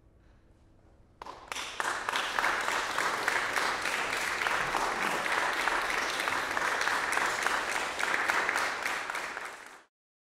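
Audience applauding, starting about a second in and quickly filling out into steady clapping, then cut off abruptly near the end.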